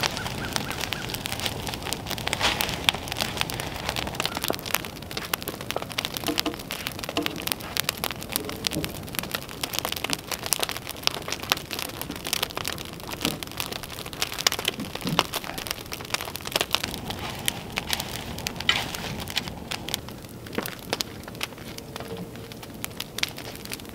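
Open brush fire crackling and popping steadily under the ends of log posts as they are charred, with many quick sharp snaps, thinning a little near the end.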